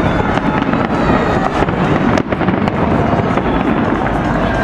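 Aerial fireworks shells bursting in quick succession: a dense run of bangs and crackles.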